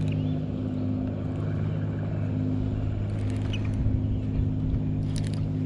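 Steady low motor hum with a few light clicks near the end.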